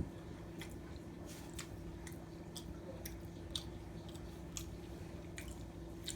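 Close-miked chewing of food, soft wet mouth clicks coming about two a second.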